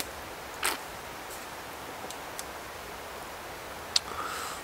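A man drinking from an aluminium beer can: a short drinking sound about half a second in, a few faint ticks, then a sharp click just before the end as the can comes down, followed by a brief hiss.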